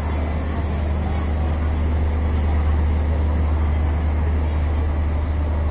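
Steady low rumble of a passenger train pulling out of the station, its coaches rolling away along the platform.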